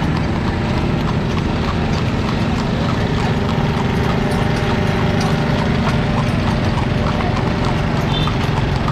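Hooves of a horse pulling a carriage, clip-clopping in a quick, even rhythm on a paved road, over a steady low rumble.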